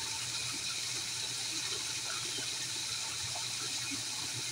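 Small waterfall running steadily into a garden fish pond: an even hiss and splash of falling water.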